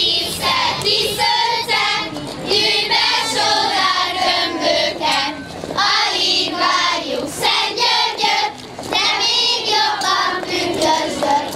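A group of girls singing a Hungarian folk song together, phrase after phrase with short breaks: a kiszehajtás song sung while carrying out the straw kisze effigy to see off winter.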